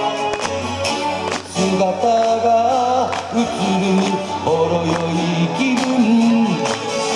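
Live band music with electric and acoustic guitars, keyboard and drums, and several voices singing together over it.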